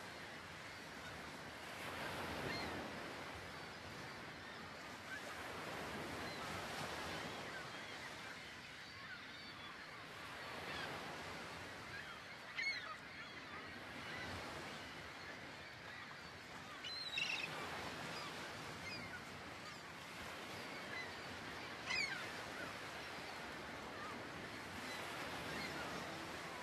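Surf washing on a beach, a soft rushing that swells and eases every few seconds, with three short, sharp bird calls several seconds apart.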